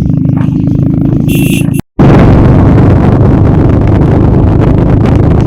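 A motorcycle on the move: a loud, steady rumble of engine and wind on the microphone. A brief high-pitched tone comes just before the sound cuts out for a split second near two seconds in, and the rumble then carries on, noisier.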